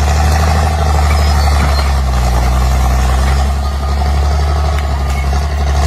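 Bulldozer diesel engine running steadily with a deep, low drone.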